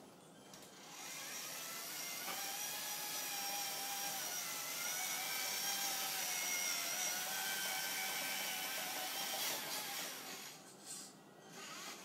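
Electric motor and gearbox of a radio-controlled scale Chevy K3500 crawler truck whining as it drives across the floor. The whine rises about a second in, holds steady with a slight waver in pitch, and fades near the end as the truck passes.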